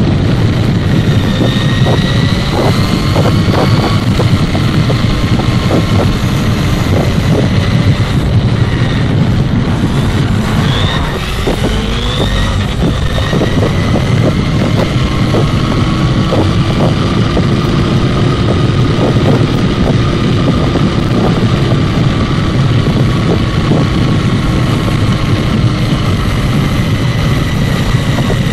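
Onboard sound of a Kyosho Mini Inferno 1:16 electric buggy on asphalt. A steady rush of tyre and wind noise runs under the whine of its Novak Mongoose brushless motor and gears, with small ticks from the road surface. The whine dips about eleven seconds in, then climbs again as the car picks up speed.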